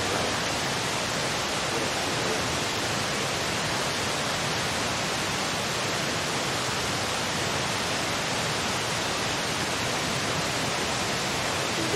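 A steady, even rushing hiss that holds unchanged throughout, with no distinct events in it.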